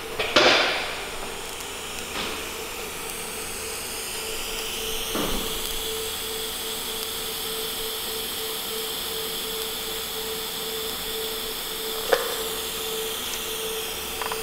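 TIG welding arc running on a tube joint, a steady hiss with a faint pulsing hum. It strikes with a sharp start just after the beginning and carries on unbroken, with a couple of light clicks along the way.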